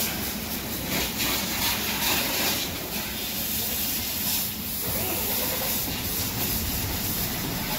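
Pressure-washer water jet hissing against a pickup truck's front wheel and wheel arch, its hiss swelling and easing as the spray is moved about.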